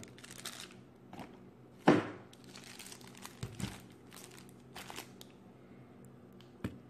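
Foil-wrapped 2016 Panini Prestige football card packs crinkling as they are handled, with a loud thud about two seconds in and softer knocks later as the packs are set down on a table.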